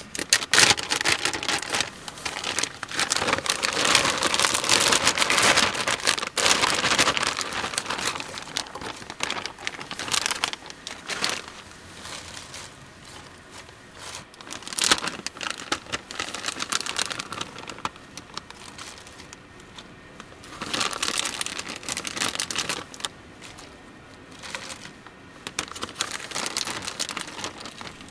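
Crinkling and crackling, in repeated bursts of a few seconds each, loudest in the first several seconds.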